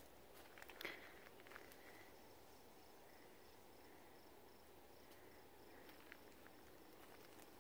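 Near silence: faint garden ambience with a high, thin chirp repeating about three times a second, and a few soft clicks about a second in.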